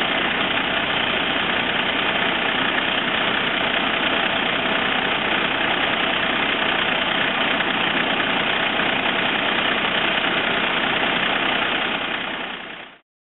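Heavy diesel farm machinery running steadily, a dense engine drone that fades out and cuts off near the end.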